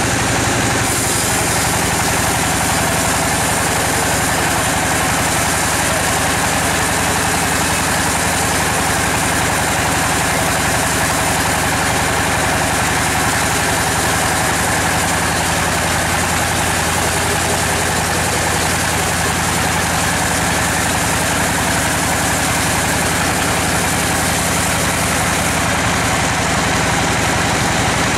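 Band sawmill running with its blade cutting lengthwise through a bayur log: steady machine noise with a hiss of the sawing, going on without a break.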